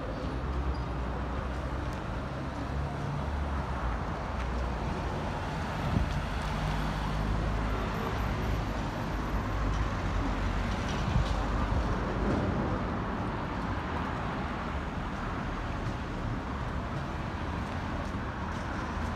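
Street traffic: motor vehicle engines running and passing with a steady low hum and road noise, and a brief knock about six seconds in.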